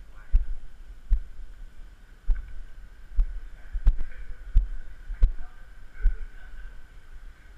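Footsteps of someone walking, heard as low thumps about every three-quarters of a second, over a steady faint high hum.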